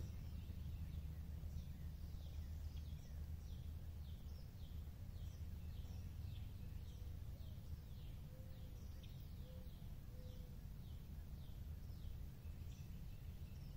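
A bird calling in a long series of short, high, downward-sliding notes, about two a second, which stop near the end, over a steady low rumble.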